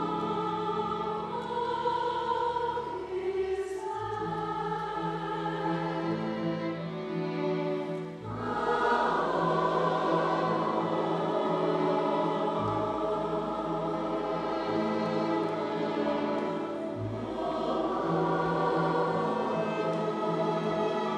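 Mixed choir of men's and women's voices singing a slow piece with instrumental accompaniment. About eight seconds in the sound briefly thins, then the choir comes back in fuller and louder.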